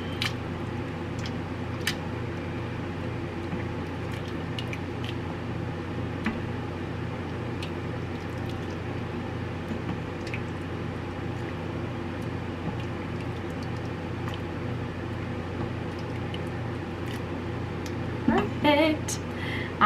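Soup being ladled from a stainless steel Instant Pot inner pot into a glass bowl with a large spoon, making scattered faint clinks and scrapes. A steady low hum runs underneath.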